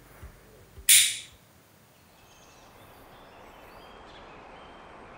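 A short, loud hiss about a second in, then a brief hush before faint outdoor ambience fades in, with faint bird chirps.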